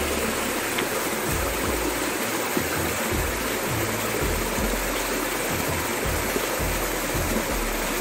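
A small rocky stream pouring over a low cascade between boulders, a steady rush and splash of falling water.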